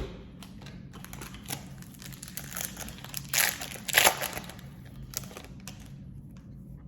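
Foil trading-card pack wrapper crinkling as it is handled and opened, with a sharp click at the start and louder crackles about three and a half and four seconds in.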